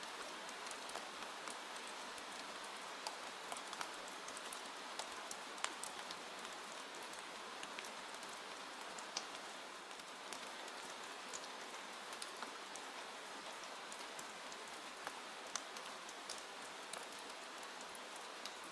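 Steady rain pattering on a window pane, a constant hiss with many small, irregular drop ticks.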